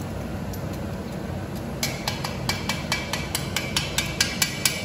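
Stainless steel strainer of deep-fried pork skin being shaken or tapped over a wok to drain the oil: rapid metal clinking, about five or six knocks a second with a ringing note, starting about two seconds in over a steady low hum.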